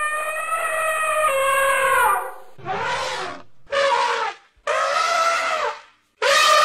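African elephants trumpeting: a run of about five loud calls with short gaps between them, each falling in pitch at its end.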